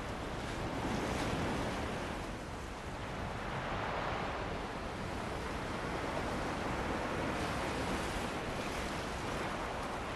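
Ocean waves breaking and washing on a beach, swelling and easing every few seconds, with wind blowing over it.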